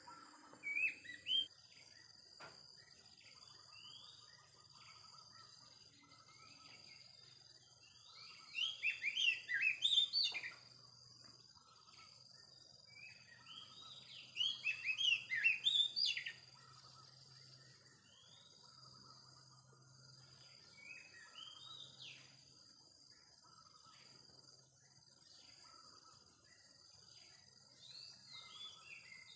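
Oriental magpie-robin (kacer) singing: short varied whistled phrases, with two loud runs of rapid notes about a third and halfway through, and softer scattered phrases between.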